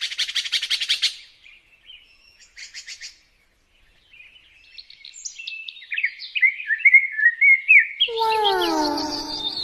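Songbird singing: a fast rattling trill, a second short trill, then a run of chirps and warbled notes. Near the end a louder set of falling, lower-pitched whistles comes in.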